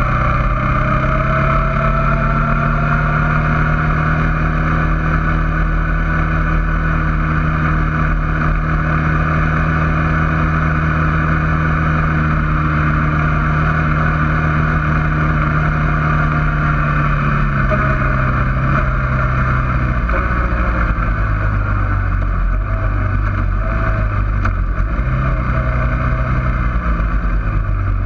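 Suzuki King Quad 400 ATV's single-cylinder four-stroke engine running steadily at riding speed, then easing off about two-thirds of the way through, its pitch dropping and wavering with the throttle.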